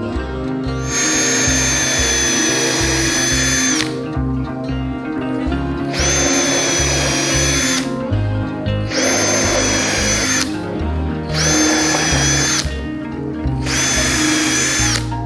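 Power drill running in five separate bursts of a steady whine, each a second and a half to three seconds long, over background music with a steady beat.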